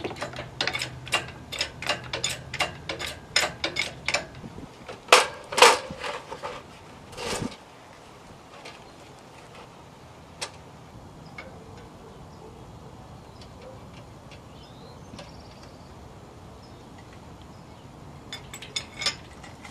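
Light metallic clicks, about four a second for some four seconds, then a few sharper knocks and a short scrape, from an engine hoist and its chains. After that only faint background, with a few more clicks near the end.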